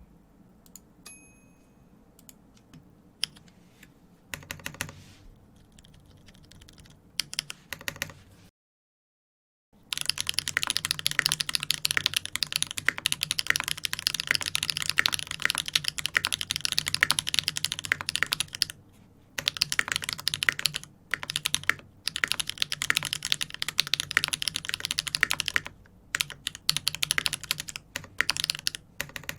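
Typing on a custom 65% mechanical keyboard with a 1.5 mm brass plate, sandwich mount and lubed tactile switches. For the first eight seconds there are only scattered, quieter key presses. After a brief total silence comes fast, continuous typing, with a few short pauses.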